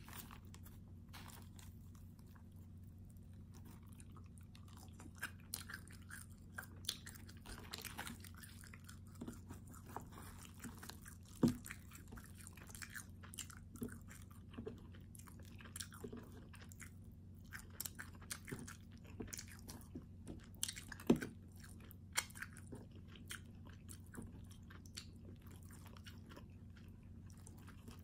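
A calzone being torn apart by hand in its paper-lined box: soft crackling and squishing of crust and melted cheese, with scattered small clicks of nails and paper. Two sharper clicks stand out, one near the middle and one about three quarters through, over a low steady hum.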